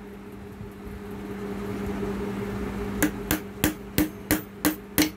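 Light hammer taps driving a new needle bar bushing down into a Juki industrial sewing machine, struck through a small tension-disc plate that protects the bushing's mouth. The taps pause for about three seconds, then resume at about three a second. A steady low hum runs underneath.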